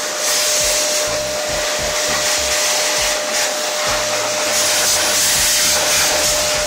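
Einhell TH-VC 1820/1 S wet/dry vacuum running in blower mode, blasting air into an open computer case. The rush of air is steady, with a constant motor whine under it.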